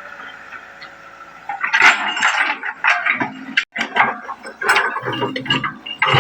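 Excavator at work, with a steady engine hum. From about a second and a half in come loud, irregular metallic clanks and clinks, typical of the bucket and linkage knocking as it digs.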